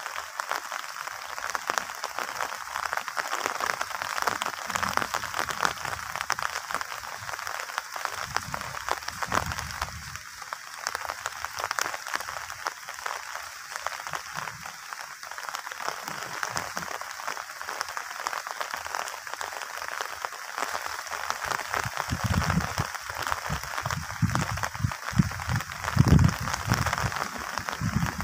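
Steady rain pattering, a dense hiss of many fine drops. Low muffled bumps come in over the last few seconds.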